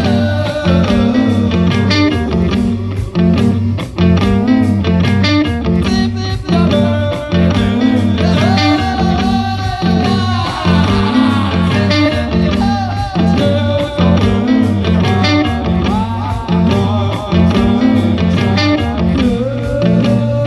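Rock band playing live: an electric guitar lead with held notes, some bent upward, over a steady bass and drum beat.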